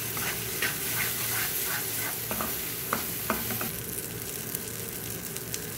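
Onion-and-spice masala sizzling in oil in a nonstick kadai, stirred and scraped with a wooden spatula for about the first three seconds, then left to fry with a steady sizzle and a few small pops. This is the masala frying until the oil separates.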